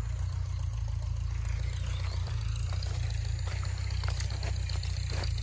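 Steady low rumble, with light crunching and rustling steps through dry cane leaves about three and a half to five seconds in.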